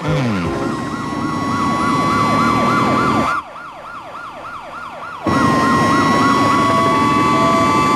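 Cartoon police sirens yelping in fast repeated rises and falls, about three a second, over a steady high tone. The sound drops away for about two seconds in the middle, then the sirens and steady tone return, with short repeated beeps near the end.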